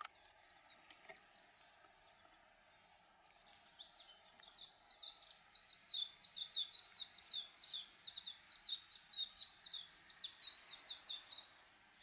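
Japanese white-eye singing: faint high chirps, then about three seconds in a long, fast run of high twittering notes that stops shortly before the end.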